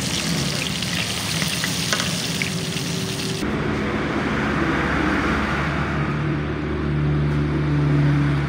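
Fish deep-frying in a large wok of hot oil: a loud, crackling sizzle. It cuts off abruptly about three and a half seconds in, giving way to a duller background noise with a steady low hum that grows louder near the end.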